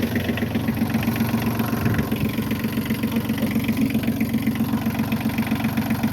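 Massey Ferguson 1220 compact tractor's small diesel engine idling steadily with an even, rhythmic pulse, running on freshly changed oil.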